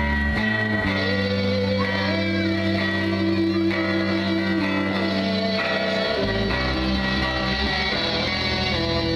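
Small rock band playing live, electric guitars over a bass guitar, with long held notes and the chord changing about six seconds in.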